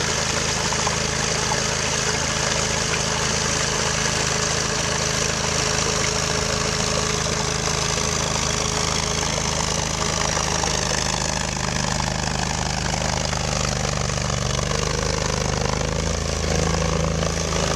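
Amphibious ATV's engine running steadily, its pitch shifting a little up and down in the second half.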